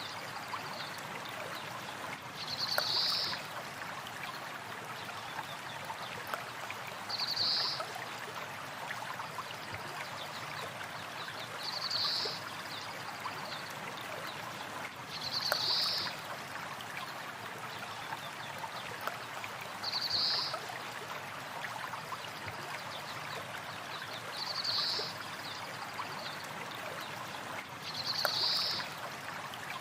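A stream flowing steadily, with a short high bird call repeating about every four seconds.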